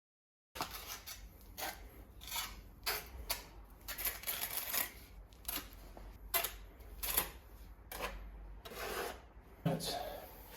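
Irregular short scrapes and clicks of hand tiling work, about one or two a second, beginning sharply half a second in, with a duller knock near the end.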